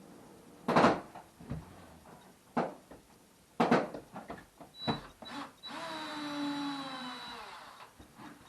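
Several sharp knocks and clatters, then a power drill runs for about two seconds, its pitch falling slowly as it runs down.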